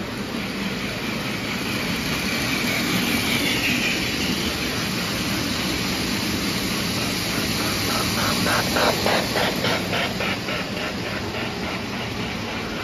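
O gauge toy trains running on three-rail tinplate track: a steady whirr of motors and wheels on steel rail. From about seven to ten seconds in there is a rhythmic clicking, about three clicks a second, as wheels pass over the rail joints.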